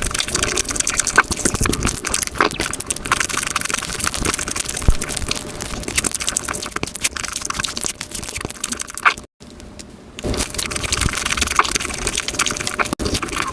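Close-miked eating sounds played fast: a dense run of crunching and crackling clicks, broken by a brief near-silent gap about nine seconds in.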